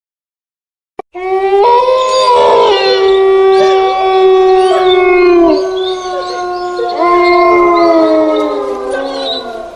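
About a second of dead silence, then a click and a horror ringtone made of long, drawn-out canine howls. Several howls overlap and slide in pitch, with a fresh howl starting near the end.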